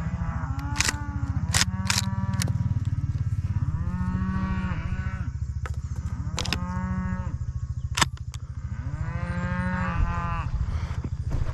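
Cattle mooing repeatedly, about five drawn-out calls each lasting about a second, with several sharp clicks between them and a steady low rumble underneath.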